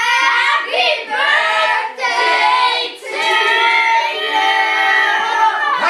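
A group of children singing a birthday song together in long held notes, pausing briefly for breath twice.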